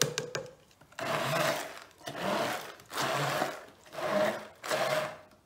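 Hand-held stick blender run in short pulses, five bursts about a second apart, puréeing basil, pine nuts, garlic, parmesan and olive oil into pesto in a tall plastic beaker. A few light clicks come just at the start.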